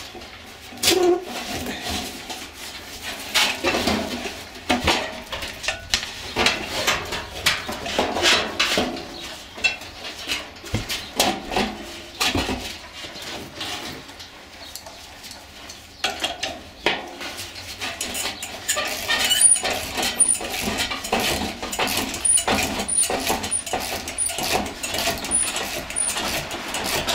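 Ratchet wrench and metal parts clicking, clinking and knocking inside a sheet-metal squirrel cage blower housing as bolts are worked loose during blower motor removal. Irregular sharp clicks throughout, with short high squeaks repeating in the second half.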